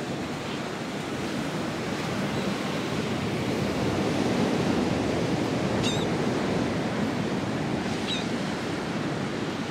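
Atlantic surf breaking and washing onto the beach, with wind on the microphone; the surf swells a little past the middle.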